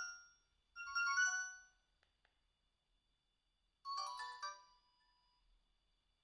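Alcatel One Touch 217D mobile phone playing short electronic ringtone melodies through its small speaker. A brief phrase sounds twice in the first couple of seconds, a few faint clicks follow, and a different short phrase plays about four seconds in.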